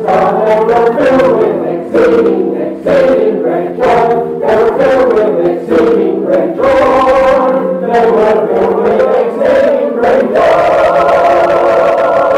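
Choir singing a hymn-like passage in short syllables, then holding a long final chord through the last couple of seconds.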